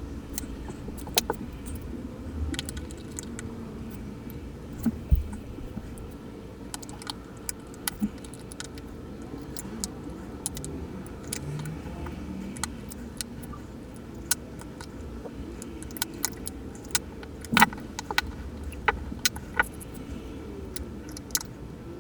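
Small tools and parts of a Casio analog wristwatch clicking and clinking as it is taken apart, in irregular light clicks with a few louder ones, the loudest about seventeen seconds in.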